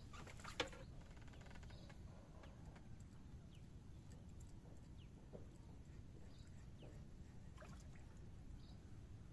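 Near quiet with a steady low rumble; a single sharp click about half a second in as a fishing rod is handled in its rack, followed by a brief run of fast faint ticks. Scattered short faint bird chirps come and go.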